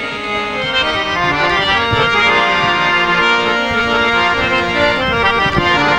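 Harmonium playing a melody in an instrumental passage between sung lines of a Punjabi Sufi dhamal, its reeds sounding several held notes at a time as the tune moves from note to note.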